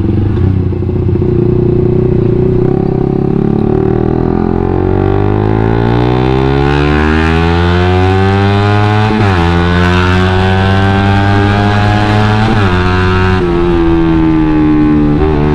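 Suzuki GSX-R150's single-cylinder engine breathing through a WRX GP5K1 aftermarket full-system exhaust, accelerating hard through the gears. The pitch climbs steadily, drops at an upshift about nine seconds in, climbs again, drops at a second shift about thirteen seconds in, and starts to drop at a third shift at the very end.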